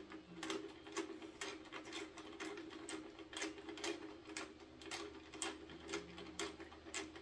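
Quarter-inch ratchet wrench with a 4 mm hex socket clicking in a steady run, about two clicks a second, as socket-head screws are driven in.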